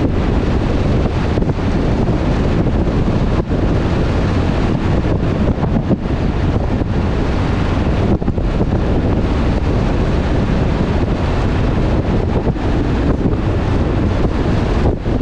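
Steady wind rush on the microphone of a camera riding on a moving truck, a loud even noise heaviest in the low end.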